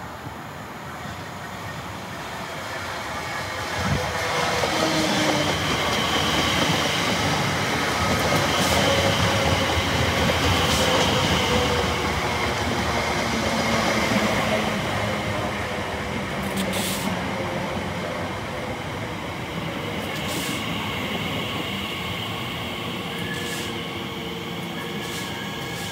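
Class 345 electric multiple unit running on the tracks: a rumble of wheels on rail with steady whining tones over it, building about four seconds in, loudest in the middle, then easing off.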